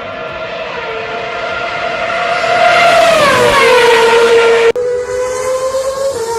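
2013 Red Bull RB9 Formula 1 car's 2.4-litre Renault V8 at high revs, approaching and passing by: the high engine note grows louder and its pitch drops as the car goes past about halfway in. After a sudden break near the end, the engine is heard again running steadily.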